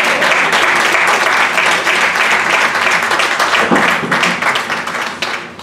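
A congregation applauding: many hands clapping in a dense, steady clatter that stops abruptly shortly before the end.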